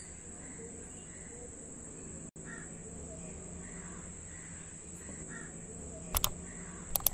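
Crows cawing in the background, short calls repeated on and off. Two sharp clicks come near the end.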